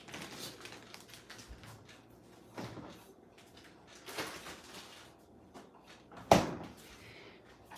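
Light rustles and knocks, then a refrigerator door shutting with a single thump about six seconds in.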